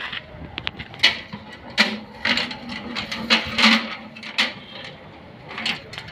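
Steel construction hand cart clanking and rattling as it is tipped and wheeled over concrete, with about seven sharp metal knocks from its frame and hanging chains.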